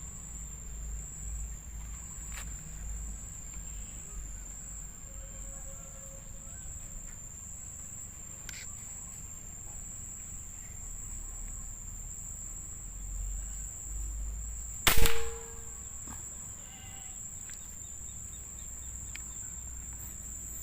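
A steady, high-pitched insect drone over quiet outdoor ambience, with a single sharp crack from a PCP air rifle shot about fifteen seconds in.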